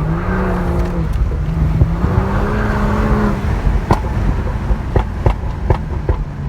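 BMW 340i F30's turbocharged 3.0-litre inline-six on a Stage 2 custom tune, accelerating with its note climbing in pitch and a brief break about a second in. At about three and a half seconds the throttle closes, and about five sharp exhaust pops and crackles follow from the tune's pops-and-bangs map.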